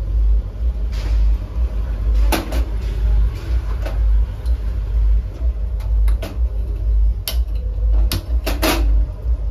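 Several sharp clinks and knocks of metal cookware being handled, over a steady low rumble.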